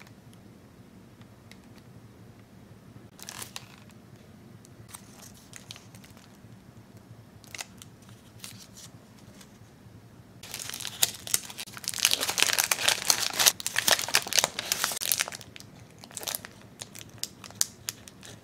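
Paper and clear plastic wrapping crinkling and rustling as a wrapped candy is unwrapped by hand. The crinkling is light and scattered at first, turns loud and dense from about ten seconds in for around five seconds, then thins to sparse crackles.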